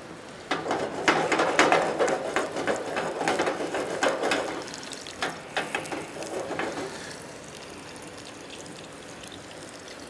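Cooking sounds at a stovetop pan: irregular clicks and clatter with a crackly, rustling noise that dies down about seven seconds in, leaving only a faint steady background.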